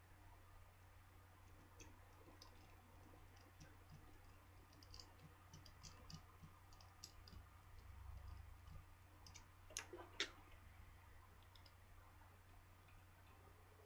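Faint small clicks and ticks of a small tool and plastic or metal phone parts being handled, with two sharper clicks about ten seconds in.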